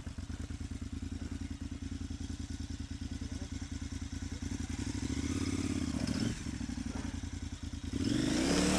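KTM Adventure motorcycle engine idling with an even pulse, swelling louder about five seconds in and again near the end with a rush of broad noise.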